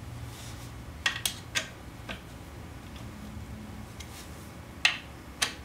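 Short, sharp metal clinks of a hex key against the screws and steel plate of a bearing installation tool as the plate's screws are tightened: three quick clinks about a second in, one more shortly after, and two near the end.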